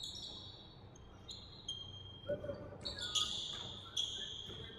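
Basketball shoes squeaking on a hardwood gym floor as players cut and stop: several short, high squeaks with an echo after each, the loudest cluster a bit past halfway.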